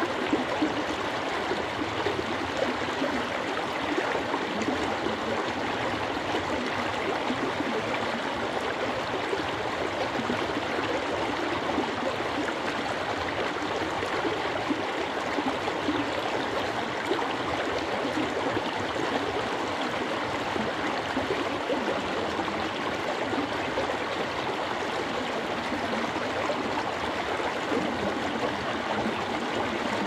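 Shallow stream rushing and gurgling over rocks, a steady even babble.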